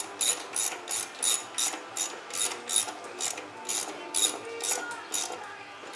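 Ratchet wrench clicking in quick regular strokes, about three a second, as the lawnmower blade bolt is run down onto the blade; the clicking stops about five seconds in.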